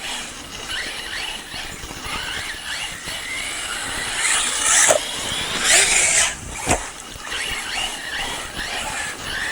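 Electric RC buggy racing on dirt: a high brushless-motor whine rising and falling with the throttle over gritty tyre and gravel noise, with one sharp knock about two-thirds of the way through.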